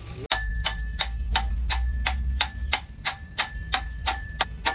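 Steel hammer blows on a metal drift, driving a part into a cast tractor gearbox housing: a steady run of a dozen or so strikes, about three a second, each ringing with the same bright metallic tone. A low rumble sits underneath.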